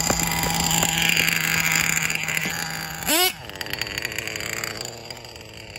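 Small nitro RC truggy engine running at a steady pitch, then dropping to a lower, quieter note about three seconds in. A short vocal sound comes at that moment.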